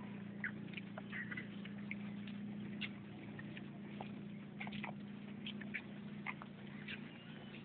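Faint ambience of a crowd standing quietly in the open: a steady low hum under scattered, irregular short high chirps and ticks.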